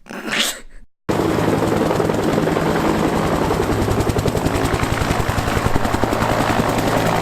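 Helicopter running close by, its rotor beating in a fast, even pulse under a steady engine hum; it starts abruptly about a second in.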